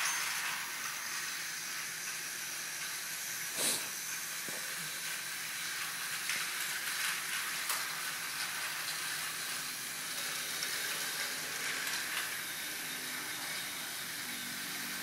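Steady steam hiss, with one sharp click a little under four seconds in.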